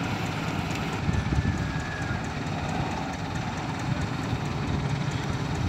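Six-wheel dump truck's diesel engine running as the truck pulls away across soft, muddy ground, a steady low rumble.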